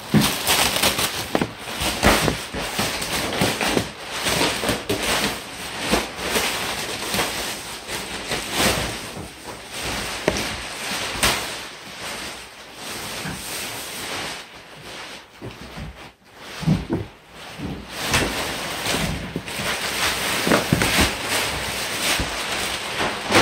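Plastic packaging wrap crinkling and tearing as it is pulled off a rolled, compressed foam mattress: an irregular run of crackles and rustles with a few short pauses.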